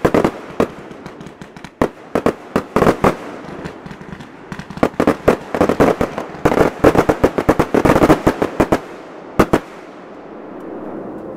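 Backyard consumer aerial fireworks bursting in a rapid volley of sharp bangs, scattered at first, then a dense run about halfway through, two last bangs, and a fading trail near the end.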